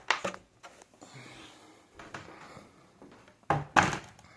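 A few knocks and thuds of things being handled and set down: a short knock at the start, then two louder ones close together near the end.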